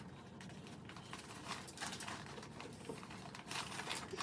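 Fabric seat cover and plastic parts of a MamaRoo baby seat being handled while its zipper is fitted on: soft rustling with light, irregular clicks and taps, a little busier near the end.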